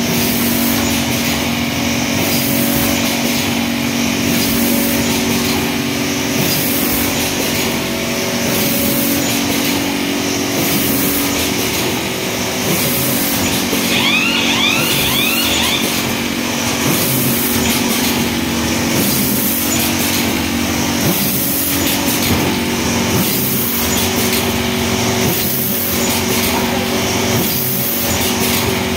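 Blacksmith fully automatic woven PP sack cutting and stitching machine running: a steady mechanical hum with a regular pneumatic hiss about every second and a half as each bag is cut and fed.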